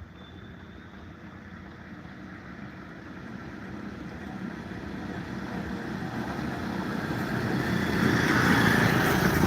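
A road vehicle approaching, its engine and tyre noise growing steadily louder until it passes close by near the end.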